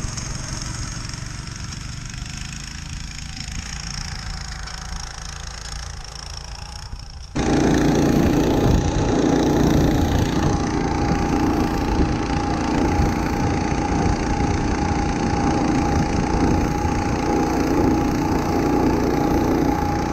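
Husky mini snowmobile's four-stroke engine running steadily. About seven seconds in, the sound steps up abruptly to a louder, steady engine note that holds to the end.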